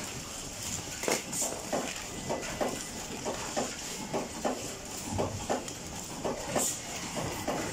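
Irregular light clicks and clatter of plastic phone parts and circuit boards being handled on a landline telephone assembly line, about two or three a second, over a steady high hiss of workshop noise.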